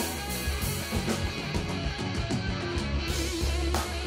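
Live rock band playing an instrumental passage with no vocals: electric guitar over bass guitar and a drum kit with cymbal hits.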